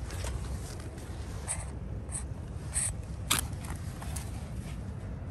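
A cat's fur brushing against the phone's microphone: a string of short scratchy rustles, the sharpest about two-thirds of the way through, over a steady low rumble of handling noise.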